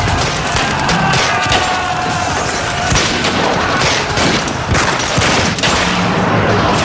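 Dense battle gunfire: rapid rifle and machine-gun shots crackling one over another, with heavier booms among them.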